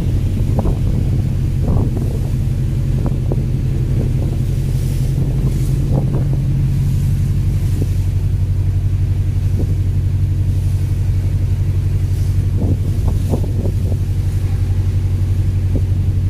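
Fishing vessel's engine droning steadily while underway, with water rushing along the hull and wind on the microphone.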